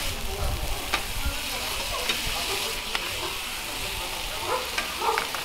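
Pork offal, bean sprouts and green onions sizzling on a flat-top griddle while being stir-fried, with a steady hiss and several sharp clicks and scrapes of the metal spatulas and tongs against the griddle.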